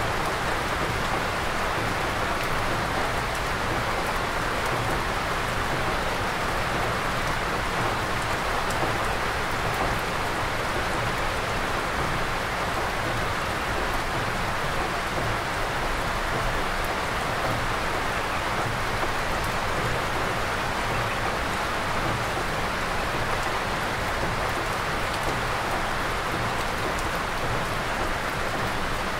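Steady rain falling on a dense forest, an even, unbroken hiss with no pauses or distinct events.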